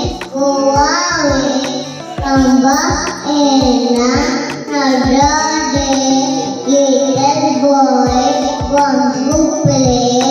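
A young child singing a nursery rhyme into a handheld microphone, over background music with a beat.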